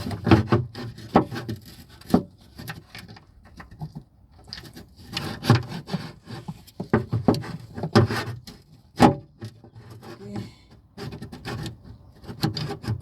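Hand work on a 2006 Seat Leon's door lock mechanism inside the door: irregular knocks, clicks and scraping as the lock assembly is pushed into place and fastened.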